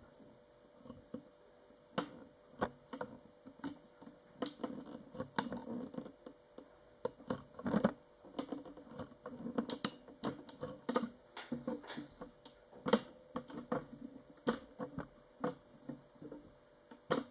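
Irregular clicks, taps and knocks with soft rustling, several a second, as a camera tripod is handled and its height adjusted.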